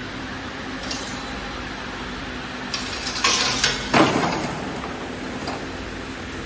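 CNC wire bending machine running with a steady hum. Sharp metallic clinks and clanks come as the wire is fed, bent and cut, with a louder burst of noise and a hard clank about three to four seconds in.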